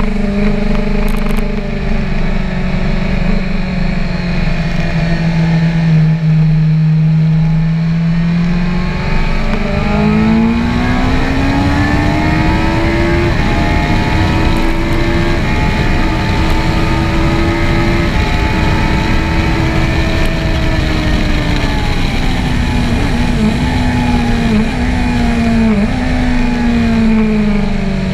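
BMW S1000R's inline-four engine at track speed: its pitch sinks as the bike slows through a corner, then climbs hard under acceleration and holds high before easing off, with a few quick pitch steps near the end as it shifts down for the next corner. Wind rushes over the microphone throughout.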